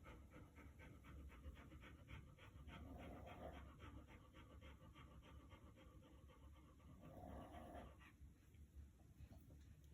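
A dog breathing fast and faintly, about five short breaths a second, with two longer, lower drawn-out breaths about three and seven seconds in; the quick breathing stops near the end.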